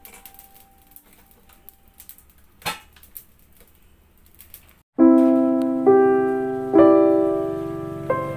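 Background piano music that starts about five seconds in, a few slow chords each struck and left to ring. Before it, only faint light clicks and a single knock.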